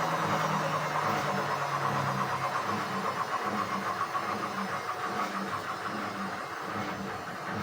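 Indesit WISN 101 front-loading washing machine on its rinse cycle: the drum motor hums, and its lower tone drops out about two and a half seconds in, leaving a quick, even swishing rhythm that slowly grows fainter.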